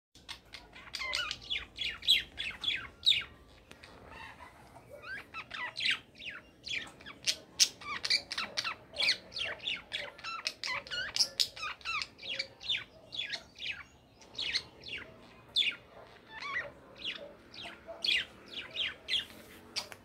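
Budgerigars warbling: a rapid, continuous chatter of short high chirps, squeaks and quick sweeps in pitch, with a brief lull a few seconds in.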